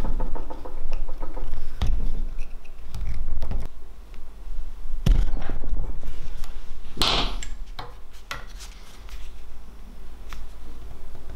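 Hand-stitching a leather sheath: waxed thread drawn through the stitching holes in rasping pulls, the strongest about seven seconds in, among scattered small clicks and taps of handling the leather and pliers.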